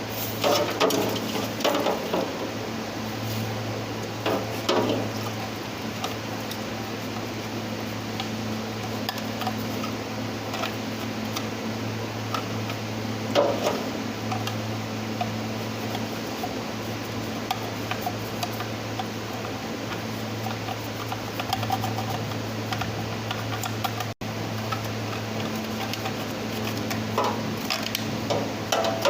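A steady low electric hum with scattered clinks and scrapes of EGR parts being handled and scrubbed by hand during cleaning.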